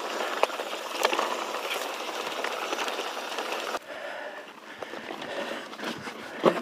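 Mountain bike rolling over rough singletrack: tyres on dirt and rock under a steady rushing noise, with sharp rattling clicks from the bike. About four seconds in it drops suddenly to a quieter stretch, with one loud knock near the end.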